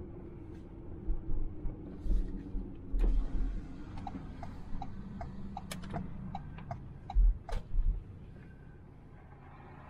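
A vehicle engine runs steadily while a stuck vehicle is pulled out with a tow rope. A few low thumps come through, and a run of quick clicks, about three a second, sounds in the middle.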